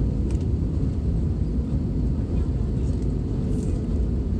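Airbus A321 cabin noise during the landing roll: a steady low rumble of the wheels on the runway and the engines, heard from inside the passenger cabin.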